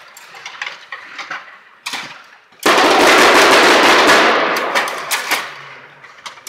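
Table hockey play: rods and plastic players clicking against the puck and the boards. Nearly three seconds in, a sudden loud, rapid rattling clatter starts and fades away over a couple of seconds.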